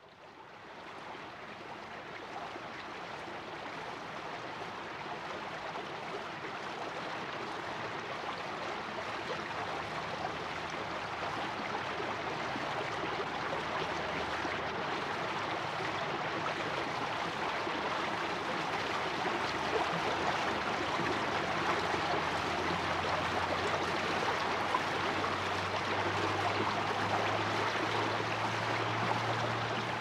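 Steady rushing of a snowmelt stream. It fades in at the start and slowly grows louder.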